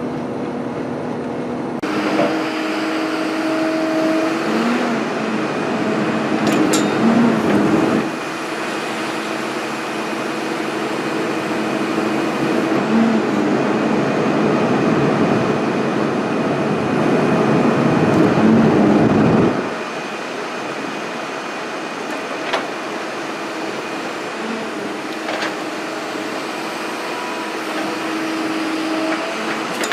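240D excavator's diesel engine and hydraulics working as the machine is run through its paces to test a freshly welded thumb. The engine note rises under load twice, the second time for about ten seconds, then drops back to a steadier run about two-thirds of the way through.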